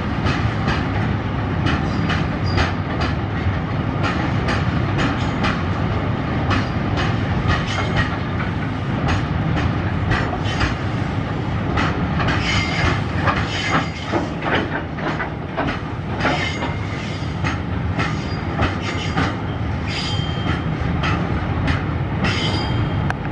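Loaded steel-coil freight wagons rolling past: a steady rumble of wheels on rail with a rapid run of sharp clicks as the wheels cross rail joints. Brief high squeals come from the wagons several times in the second half.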